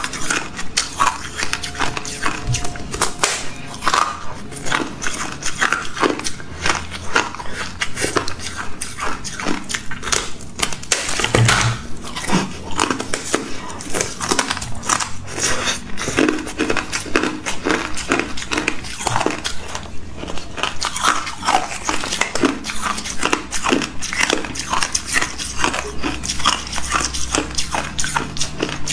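Thin sheets of ice crusted with pink frost being bitten and chewed: a dense, unbroken run of sharp crunches and crackles, several a second.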